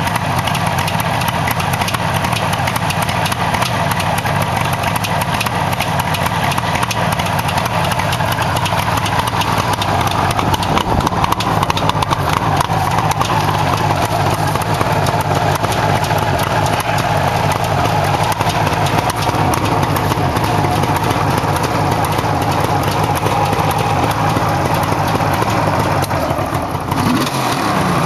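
A 1977 Suzuki GT750 'Water Buffalo' liquid-cooled two-stroke triple idling steadily, shortly after its spring start-up.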